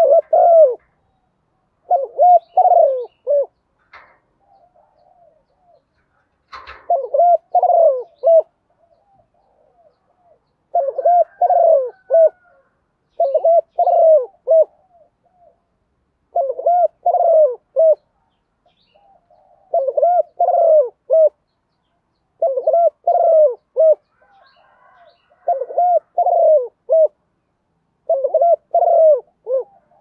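Caged spotted dove cooing close to the microphone, repeating its short multi-note phrase about every three seconds. A single light knock sounds about six seconds in.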